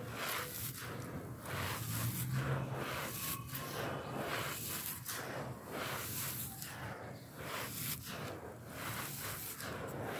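Loose fine gravel and grit crunching as hands press into a heap, scoop it up and let it pour back through the fingers, in a run of irregular gritty scrapes roughly one a second.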